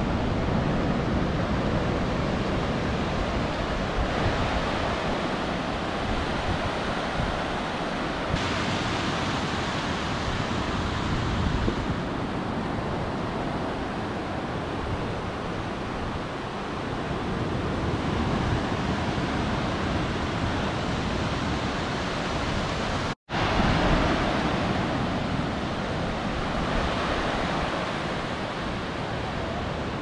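Ocean surf: small waves breaking and washing up a sandy beach in a steady rush of foam. The sound drops out completely for a split second about three-quarters of the way through.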